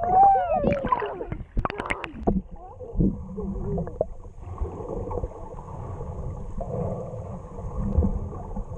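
Muffled sloshing and gurgling of sea water around a camera held in the water while snorkelling. In the first two seconds there are a few muffled, arching voice-like glides, followed by a steady watery rumble.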